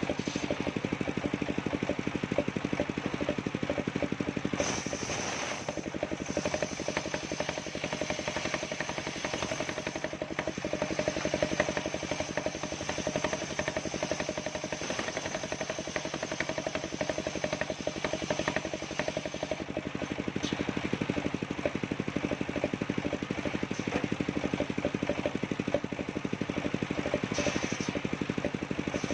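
Engine-driven circular saw of a mobile sawmill running steadily, with a constant hum and a high whine that comes in briefly a few seconds in and again near the end.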